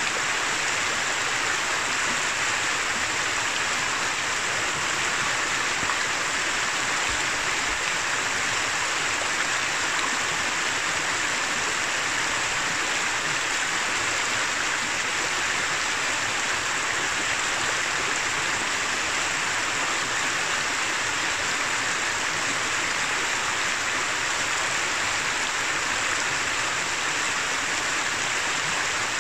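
Shallow mountain river running over a rocky bed: a steady, even rush of water.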